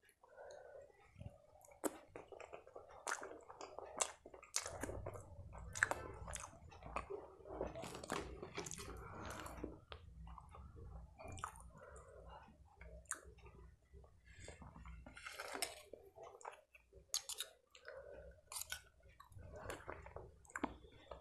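Close-miked chewing of makki ki roti (cornmeal flatbread) with sarson ka saag: wet mouth sounds with many irregular sharp smacking clicks.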